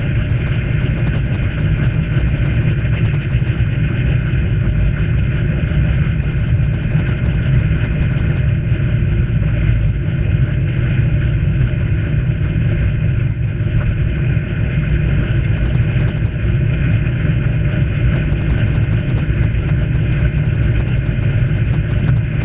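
Steady wind rumble on the action camera's microphone with tyre noise on tarmac, from a cycle riding along a paved path.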